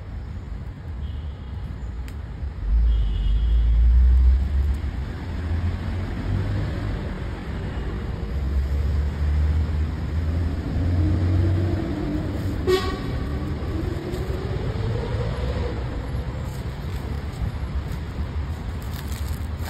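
Street traffic: a low rumble of passing vehicles, with one engine rising slowly in pitch as it pulls away and a short horn toot about two-thirds of the way through.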